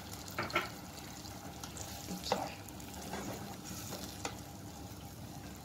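Chicken chilli gravy sizzling softly in a pot on a gas stove after half a cup of water has gone in, heating up toward the boil. A few short knocks against the pot come in between.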